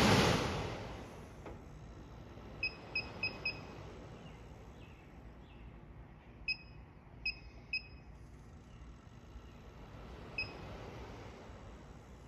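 A handheld sensor simulator gives a short, high beep with each key press: eight beeps in all, four quick ones in a row, then three more spaced apart, then one near the end. At the start, the air rush of the Nissan NV rear blower motor's fan dies away over about a second as the motor spins down.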